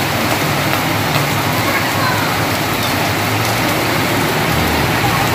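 Heavy rain pouring onto a wet concrete yard, a steady dense hiss of drops, with a low hum coming and going underneath.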